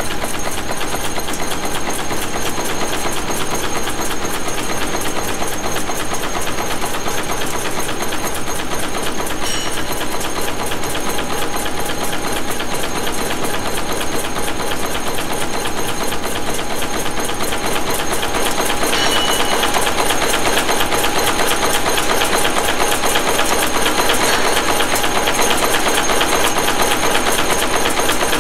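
Manek N-2 wire nail making machine running, a loud, steady, very fast metallic clatter from its repeated nail-forming strokes. It grows a little louder about two-thirds of the way through.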